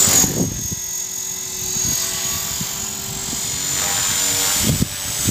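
EXI 450 electric RC helicopter in flight: its EXI 3900 brushless motor and drive gears whine steadily over the whoosh of the spinning rotor blades.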